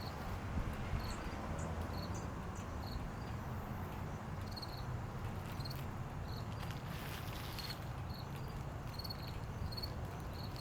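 Short high insect-like chirps repeating about once a second, over a low steady rumble of outdoor background.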